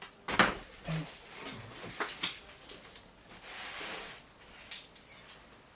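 Climbing gear being handled and set down: a few sharp knocks and light clinks, the loudest about half a second in and another near the end, with a short rustle in the middle.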